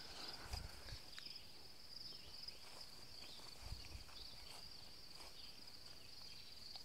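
Steady high-pitched chorus of insects, with a few soft footsteps and rustles through undergrowth.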